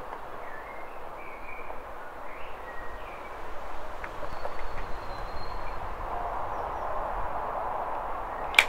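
Birds chirping over a steady outdoor background hiss, then near the end a single sharp clap as a clapperboard is snapped shut.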